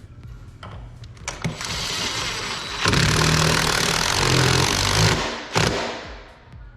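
Power drill running for about four seconds, getting louder partway through and then stopping, followed by one short burst, as it drills or drives screws into wood.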